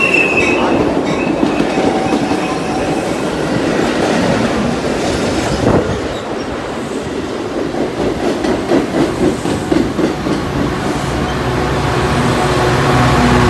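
Metra bi-level commuter cars rolling slowly past as the train brakes into the station, with a brief wheel squeal at the start and the wheels clicking over rail joints. About eleven seconds in, the low steady drone of the diesel locomotive pushing at the rear grows louder as it draws alongside.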